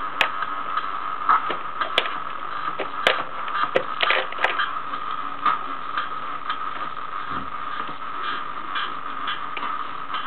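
Circuit-bent Casio MT-35 keyboard run through an MS-20 synth plugin, putting out glitchy electronic noise: a steady buzzing drone with irregular sharp clicks and crackles, busiest in the first half.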